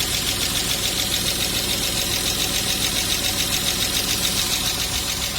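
BMW M50B25 2.5-litre straight-six idling hot with a fast, even ticking from the valvetrain: freshly fitted hydraulic lifters still bleeding air, the hot-engine lifter tick the owner is chasing.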